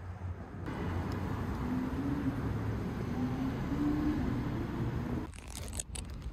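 Outdoor city street ambience: a low rumble of passing traffic with a vehicle engine running, changing abruptly about a second in and again near the end. Brief rustling and handling clicks follow.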